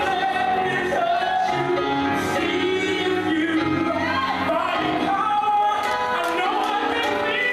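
Gospel song playing, a voice singing over continuous backing music.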